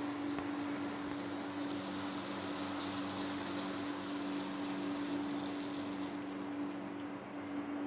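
Water poured from a jug into a clay pot of sizzling mutton, onions and tomatoes, a steady hiss that thins out about six seconds in. A steady low hum runs underneath.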